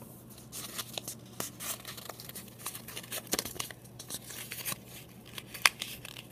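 A sheet of paper being folded and creased by hand: irregular rustling and crinkling, with a sharper crackle near the end.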